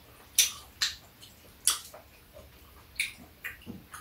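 Eating sounds: about half a dozen short, sharp, wet clicks from chewing and from chopsticks handling food in the dishes.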